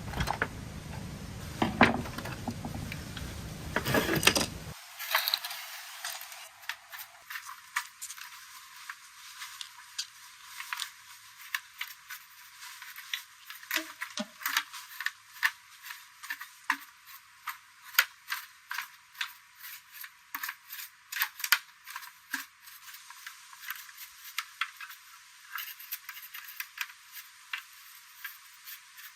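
Small metal parts and tools being handled: a long run of light clinks and taps, about one or two a second. It is preceded by a few seconds of loud, dense rumbling noise at the start.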